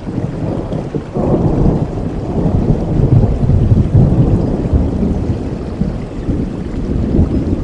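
Rain falling steadily while a low roll of thunder swells about a second in, peaks in the middle and slowly fades.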